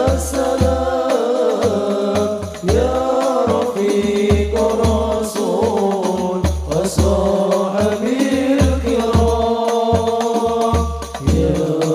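Banjari sholawat music: voices singing a chant-like melody over rebana frame drums keeping a steady deep beat of about two to three strokes a second.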